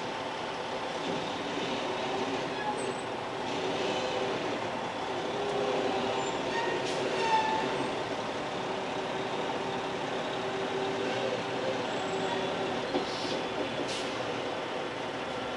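Diesel semi-truck engine running steadily at low speed, with a few short hisses near the end.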